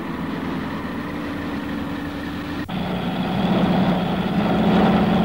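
Cartoon sound effect of vintage racing car engines running with a steady hum. About halfway through, a sudden cut switches it to a lower, louder engine drone that swells slightly.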